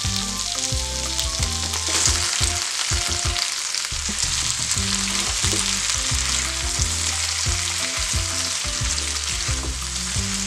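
Battered fried chicken pieces sizzling in a hot oiled wok with sautéed peppers and onions as they are tipped in and tossed.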